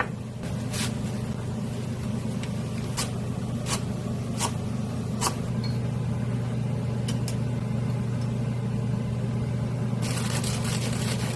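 Steady low hum of a running kitchen appliance, with a few short sharp clicks of utensils or dishes scattered through the first half; near the end a hiss joins in.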